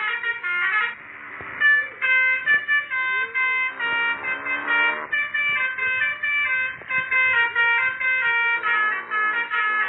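Telolet basuri multi-tone horn on a motorbike playing a melody as a quick run of bright, stepped horn notes, with a short hissing break about a second in.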